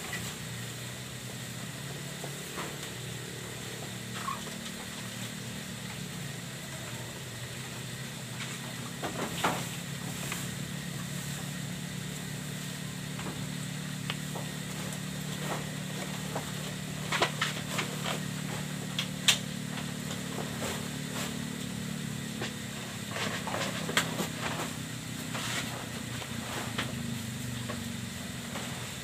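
Goats feeding on cut grass in their pen, with scattered knocks and rustles, some of them several in quick succession, under a steady low mechanical hum.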